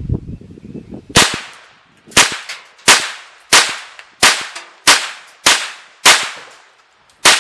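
Ruger 10/22 semi-automatic .22 LR rifle firing CCI Stinger rounds: nine sharp shots in quick succession, roughly one every two-thirds of a second with a slightly longer gap before the last. Each crack trails off in a short echo.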